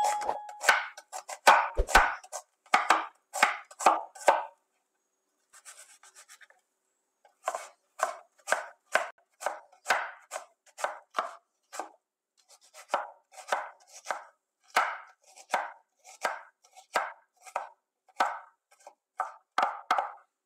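Kitchen knife dicing an onion on a wooden cutting board: a steady run of sharp chopping strokes, about two a second, with a pause of about three seconds a few seconds in.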